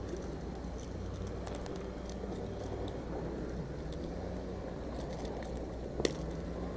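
Faint metallic clicks and rattles of fishing pliers and a lure's hooks as they are worked out of a Chinook salmon's mouth, over a steady low rumble. One sharper click comes about six seconds in.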